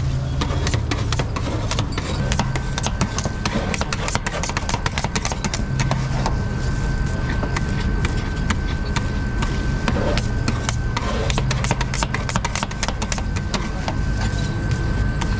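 Metal spatulas chopping and scraping on a rolled-ice-cream steel cold plate, many quick irregular clicks and scrapes, over a steady low hum. A thin steady high tone joins about two seconds in.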